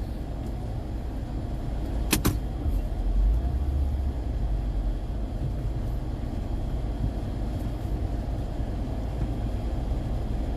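Car running with a steady low rumble, with a sharp double click about two seconds in.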